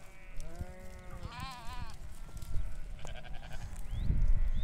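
Sheep in a flock bleating: three separate calls, the second with a strong quaver. A low rumble comes near the end.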